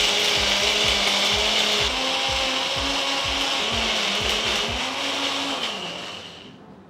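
Electric mixer grinder running with its small chutney jar, wet-grinding grated coconut, green chilies and roasted chana dal with a little water into chutney. The motor runs steadily, then winds down and stops about six seconds in.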